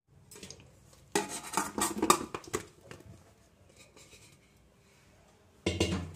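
Stainless-steel plates clinking and scraping as wet tomato pieces are tipped and spread onto a steel thali. A quick run of clatter lasts about a second and a half, then a shorter burst comes near the end.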